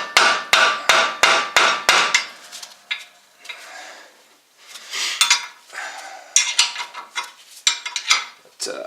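Metal-on-metal work on a new wheel stud in the hub: a quick run of sharp metallic knocks, about three a second, for the first two seconds, then scattered lighter metallic clinks of tools on the stud and lug nut.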